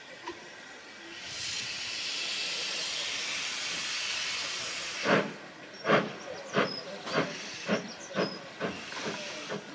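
Ivatt Class 2MT steam locomotive hissing steam for about four seconds, then starting away with loud exhaust chuffs that quicken from under one to about two a second.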